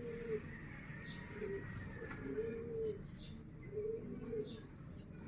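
Pigeon cooing: a series of low, arched coos, one roughly every second.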